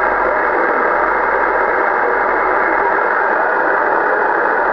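Kenwood HF transceiver's speaker giving a steady static hiss from the 11-metre band, with no station coming through between transmissions.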